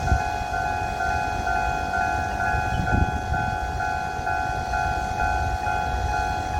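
Railway level-crossing warning alarm sounding, an electronic signal that alternates between two tones about twice a second, over a low rumble. There is a thump about three seconds in.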